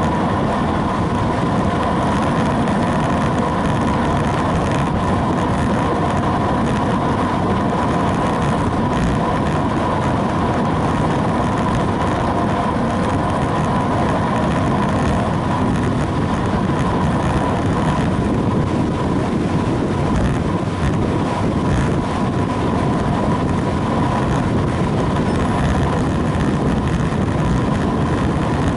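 Steady wind rush over the microphone of a camera mounted on a road bike moving at speed, mixed with tyre noise on asphalt. A steady tone runs through it.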